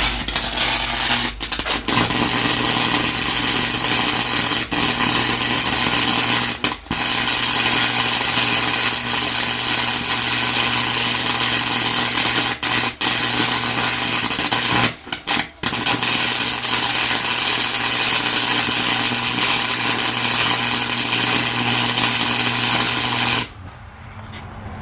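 Electric arc welder running a weld bead: a steady crackling hiss with an electrical hum, broken a few times by brief stops in the arc, then cutting off near the end.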